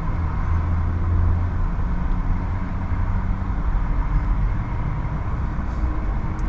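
Steady low hum and rumble inside a pickup truck's cab, with a faint steady tone above it.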